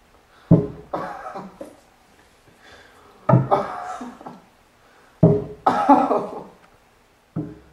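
A man's pained cries and groans, four times about two seconds apart, each starting suddenly and trailing off, the same 'aïe'-like yelps of pain that run on either side.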